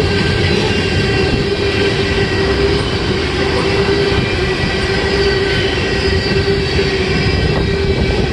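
Freight train cars rolling past, a steady heavy rumble with a sustained wheel squeal over it.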